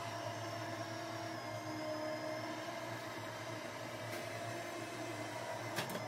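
iRobot Roomba J7+ robot vacuum running: a steady motor whir over brush and suction noise, with a sharp click near the end.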